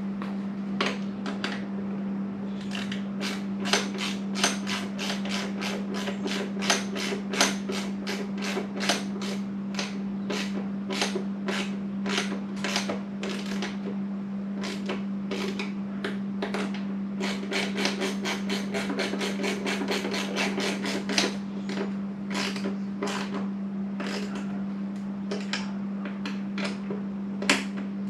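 A long series of sharp clicks, about two or three a second, from a hand tool as the windscreen screws on a Yamaha R6 are tightened, with a steady low hum underneath.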